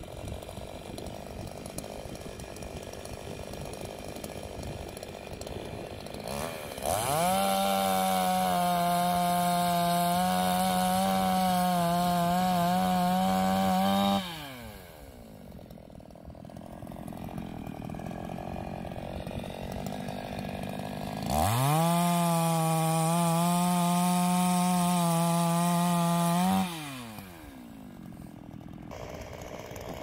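Two-stroke petrol chainsaw revved to full throttle twice: a burst of about seven seconds starting about a quarter of the way in, and one of about five seconds about two-thirds through. Each time the engine note climbs quickly to a steady high pitch and drops away when the throttle is released.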